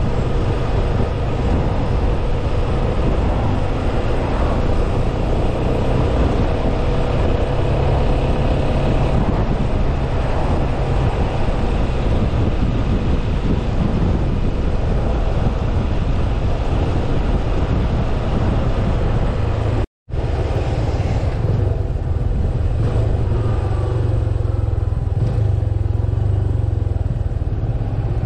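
On-board riding noise from a Yamaha FZS25 motorcycle: wind rush and road noise with its 249 cc single-cylinder engine running underneath, its tone rising slightly in the first several seconds as the bike gathers speed. The sound drops out for a moment about two-thirds through, then comes back with the bike rolling slowly.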